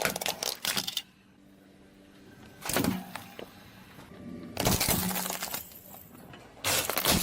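Objects crunching and cracking as they are crushed under a car's tyre, in several bursts of crackling with short pauses between.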